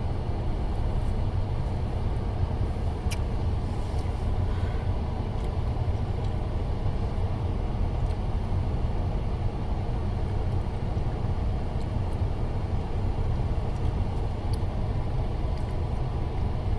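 Steady low rumble of vehicle road noise, with a few faint clicks.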